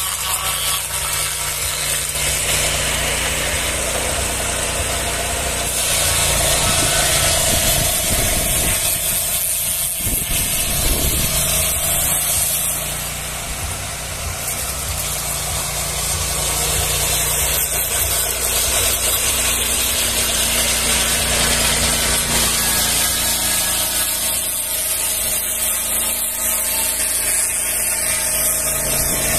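Swing-blade portable sawmill's carburetted petrol engine running steadily while its circular blade cuts along a log, surfacing it. The level dips briefly about halfway through, then comes back up.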